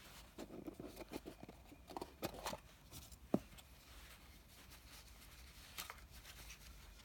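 A small cardboard jewellery box being opened by hand: soft scuffs and rustles as the lid is worked off, a sharp tap about three seconds in, then quieter handling of the cloth pouch inside.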